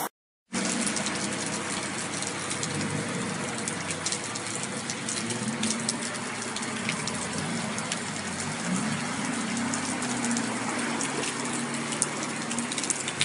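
After a brief silent gap at the start, a steady rushing of heavy rain and floodwater, dotted with sharp ticks of drops, with a faint low wavering drone underneath.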